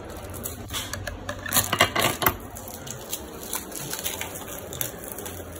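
Clear plastic packaging crinkling and crackling as a coiled plastic hose is unwrapped and handled, with a cluster of sharp crackles about two seconds in and scattered light clicks after.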